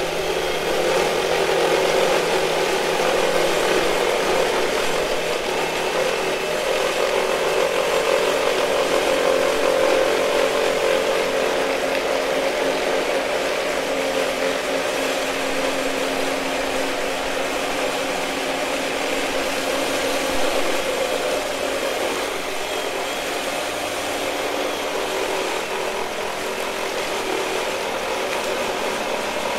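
Cordless reciprocating saw cutting through a pecan tree branch, a steady sawing and motor sound with no letup.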